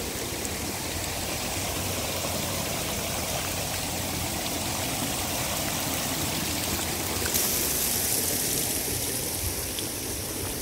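Water cascading over a low stone dam wall in thin falling streams: a steady rushing splash, its hiss growing brighter about seven seconds in.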